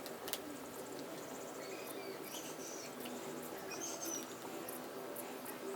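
Faint scattered clicks and light handling noise of small laptop parts being worked by hand, with a few brief high squeaks.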